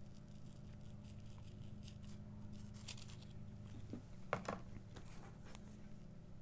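Quiet, steady low room hum with a few soft clicks and light rustles as hands handle a sandwich cookie. The clearest is a quick pair of clicks about four and a half seconds in.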